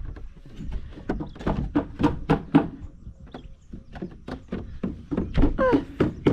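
A quick, uneven series of knocks and thuds, about three or four a second, with a short gliding voice-like call near the end.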